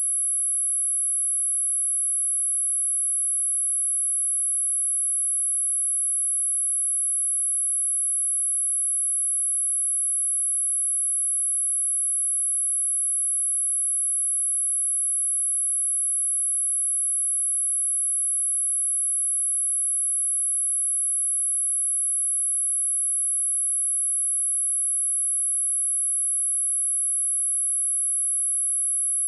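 A steady, very high-pitched pure sine-wave test tone at 10867 Hz, held unchanging at one pitch and level.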